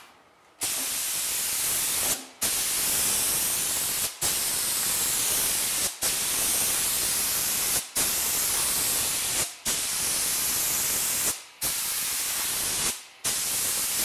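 Compressed-air gravity-feed spray gun hissing as it sprays epoxy primer onto a steel trunk lid, in about eight passes of a second and a half to two seconds each, the hiss cutting off briefly between passes as the trigger is let go.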